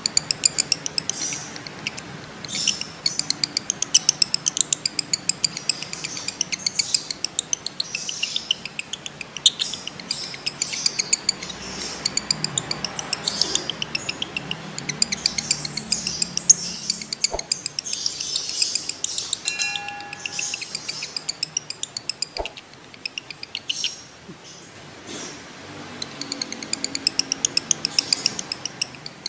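Male lovebirds in breeding condition chattering in long, fast runs of sharp, high-pitched notes (the 'ngekek' trill), broken by short pauses. About two-thirds through, a brief steady whistle-like tone and a couple of sharp clicks cut in.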